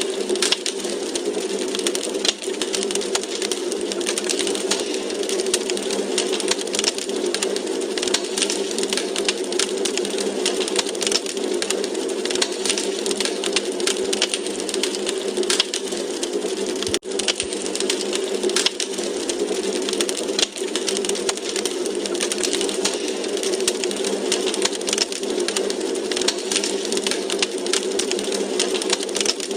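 Wood fire crackling in a fireplace: dense, irregular pops and snaps over a steady low rushing hiss of the flames, with a brief dip about two-thirds of the way through.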